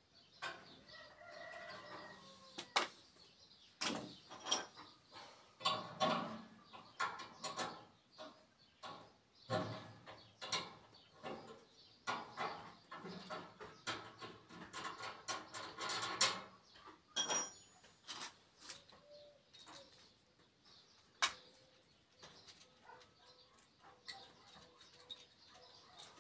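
Metal clicks, knocks and scraping of a wrench and pliers on the gas pipe fitting and injector nozzle of a gas stove's oven burner as the nozzle is changed.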